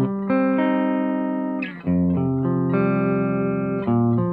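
Electric guitar played through a handmade distortion pedal: thick, distorted chords struck and held, with a new chord or change of pitch every second or so and a brief drop in sound just before the middle.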